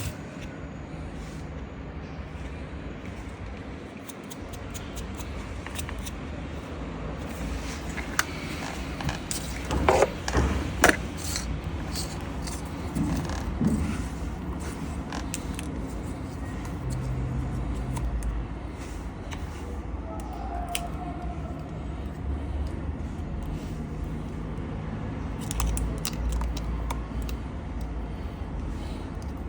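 Scattered clicks, knocks and scrapes of hands at work, loudest about ten seconds in, over a low steady rumble.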